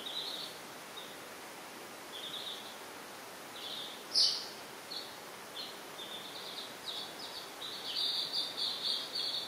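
Baby chicks peeping: short, high peeps, scattered at first and coming thick and fast near the end, with one louder peep about four seconds in.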